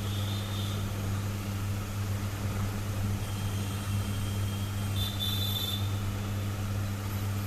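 A steady low electrical hum with a faint hiss, continuing without change throughout.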